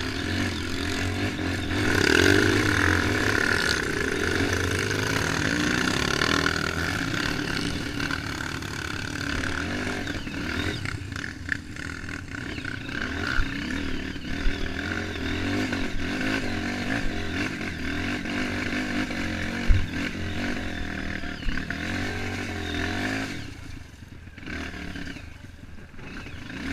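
Off-road motorcycle engine running under load on a rough trail, revving harder about two seconds in, with a few sharp knocks and clatter along the way. The engine drops away sharply near the end.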